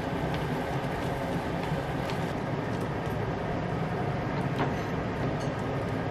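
Ramen broth simmering in a frying pan with vegetables, a steady bubbling hiss, with a few faint light clicks as the noodles are stirred and lifted with chopsticks.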